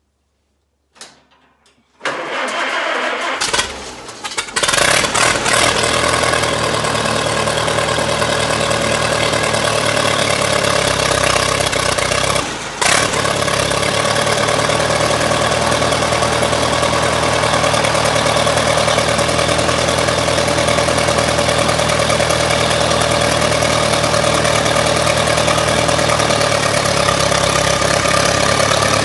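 Allis-Chalmers WD tractor's four-cylinder engine cranked by the starter for about two seconds, then catching and running steadily. The sound dips briefly about halfway through.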